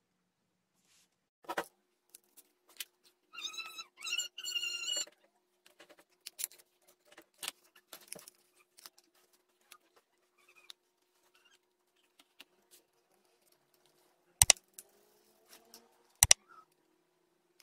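Scattered light taps, clicks and rustles from handling a toy car made of aluminium can sheet, can-lid wheels and matchboxes on a tabletop. A brief two-part squeak comes about three to five seconds in, and two sharp clicks come near the end, under a faint steady hum.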